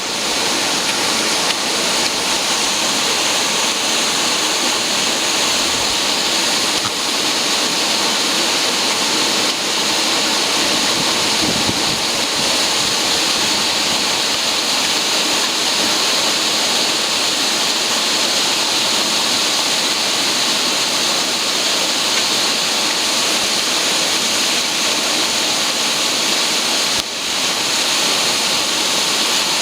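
Duct-cleaning vacuum machine running steadily, a loud even rush of air with no changes in pitch. It dips briefly once near the end.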